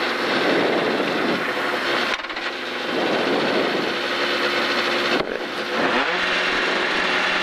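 Rally car engine revved hard while the car stands at the start line, the revs dropping briefly twice, then settling to a steady lower note near the end.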